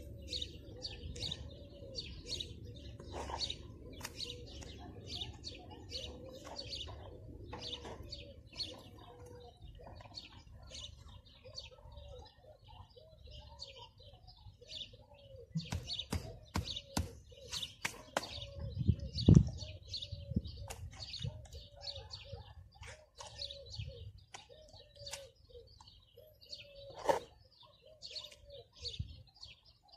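Small birds chirping and calling continuously, over scattered sharp knocks and scrapes of stone blocks and a mason's trowel being worked in mortar on a stone wall; the loudest knock comes about two-thirds of the way through.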